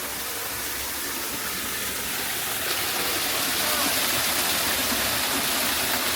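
Steady rush of running water, getting louder about three seconds in. Faint voices of passers-by sound underneath.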